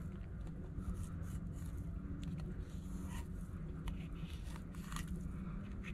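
Fillet knife cutting a flounder fillet away from the backbone: faint scrapes and small scattered clicks as the blade runs along the bones, over a steady low hum.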